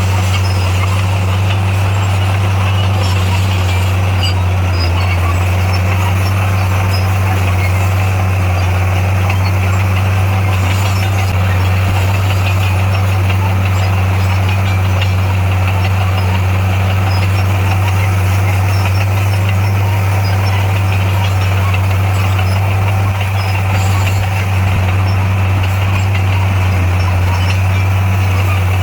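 Heavy construction machine's diesel engine running steadily, a loud, constant low drone with no revving or pauses.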